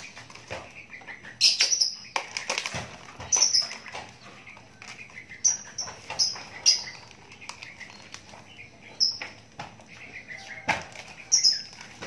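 Young Javan myna in a wire cage giving short, squeaky high chirps every second or two, with fluttering wingbeats and knocks as it hops and flaps up from the cage floor onto its perch.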